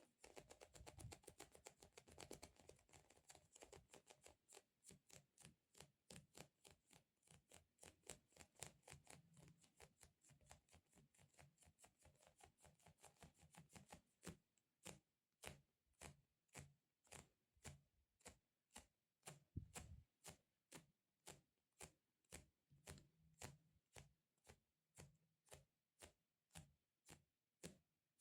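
Quiet, rapid fingertip taps on a sticky squishy toy, each a short sticky click, slowing about halfway to an even beat of roughly two taps a second.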